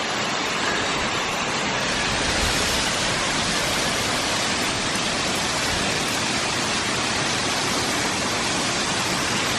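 Steady rush of water from a waterfall, an even hiss that holds unchanged.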